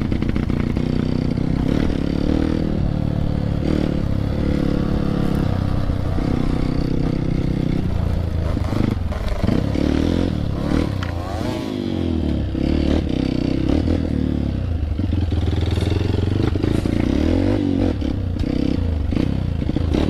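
Honda CRF dirt bike's single-cylinder four-stroke engine running under constantly changing throttle, its pitch rising and falling, with clatter from riding over rough ground.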